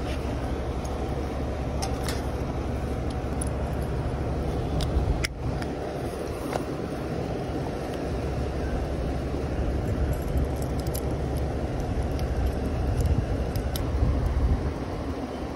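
Brass fittings on vacuum hoses clicking and clinking now and then as the hoses are handled, over a steady low rumble.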